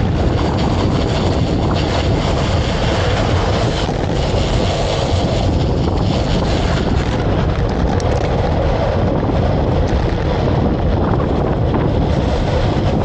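Wind buffeting the microphone: a loud, steady rushing noise with a heavy low rumble.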